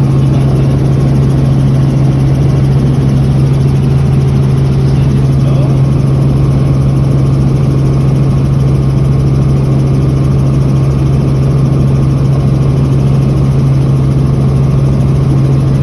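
Helicopter engine and rotors running as a loud, steady drone with one strong low hum throughout.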